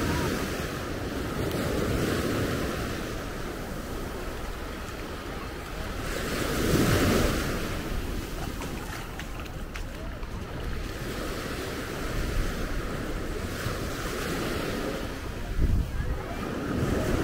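Small surf breaking and washing up a sandy beach, swelling and fading every few seconds, with the biggest wash about seven seconds in. Wind rumbles on the microphone.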